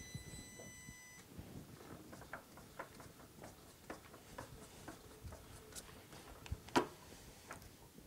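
Irregular small metallic clicks and taps as a hand works the mill's drill chuck and takes out the drill bit, with one sharper click near the end.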